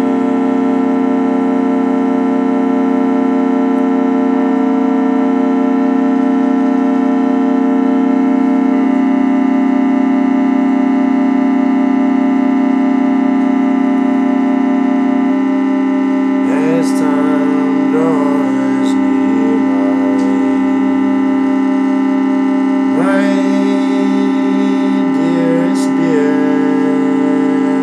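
Small portable electric organ holding sustained, droning chords that change only a few times. Twice in the second half, a wavering tone that slides up and down is laid over the held chords.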